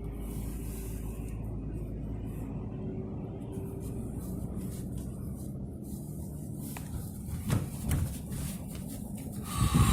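Jeep Grand Cherokee running with a steady low rumble, broken by two thuds about three-quarters of the way in and a louder thud near the end. This is the thud/thumping that comes on when accelerating, which the owner suspects is a motor mount.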